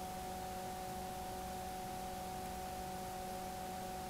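Steady electrical hum with a few fixed overtones over a faint hiss: the background noise of the narration microphone, with no other sound.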